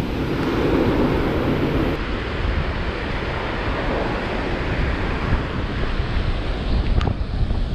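Wind buffeting the microphone over surf washing onto the beach, a steady rumbling noise, with a single sharp click about seven seconds in.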